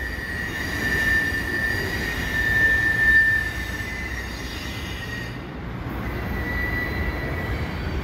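Freight train's steel wheels squealing as tank cars roll slowly over a girder bridge: a steady high squeal, strongest for the first few seconds and fainter again later, over a low rumble.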